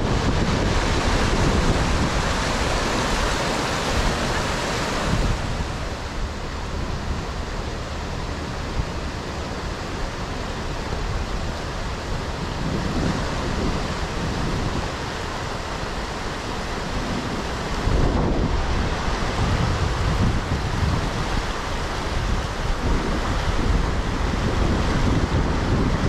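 Rushing river water, a steady noise that drops a little about five seconds in and grows louder again near eighteen seconds, with wind buffeting the microphone.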